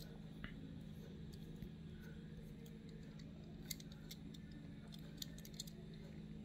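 A few faint, scattered clicks and taps as fingers handle and turn a small Tomica die-cast toy car, over a steady low room hum.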